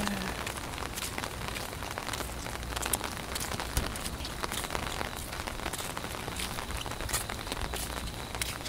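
Rain falling on an umbrella held just over the phone: a steady hiss of rain with many sharp ticks of single drops hitting the canopy.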